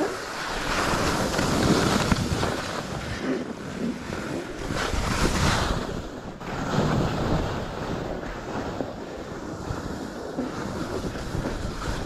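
Skis scraping over packed, chopped-up snow through a series of turns, the noise swelling with each turn, with wind noise on the microphone.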